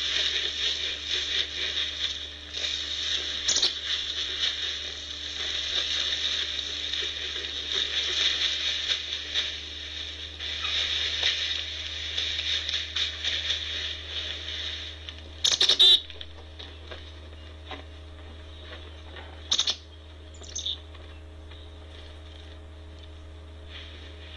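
Grain feed pattering onto snowy ground as it is scattered by hand, mixed with footsteps crunching in snow. The pattering stops about 15 seconds in. Two loud knocks follow a few seconds apart, then a faint low steady hum.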